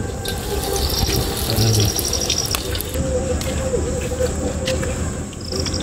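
Hot oil sizzling and bubbling as a breaded vegetable roll deep-fries, a steady hiss. Crickets chirp in short pulsed trills over it, three times.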